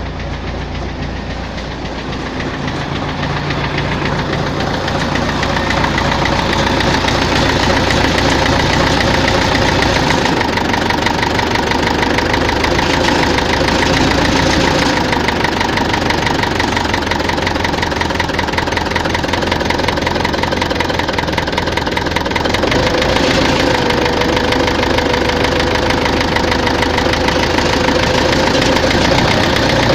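Diesel tractor engine running with a steady, rhythmic knock, getting louder over the first several seconds. The knock is heard at idle and mid revs but not at high revs; the fuel injection pump and injectors have already been checked and ruled out as its cause.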